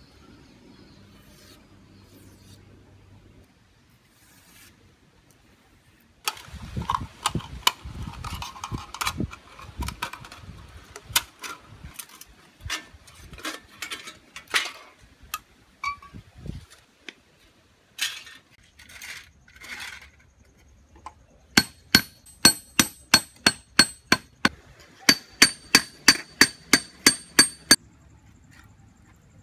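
Tin-can sheet metal being worked by hand: irregular clicks, scrapes and knocks as the tin is handled and cut, then two quick runs of light hammer taps on the metal, nearly three a second, each with a short metallic ring.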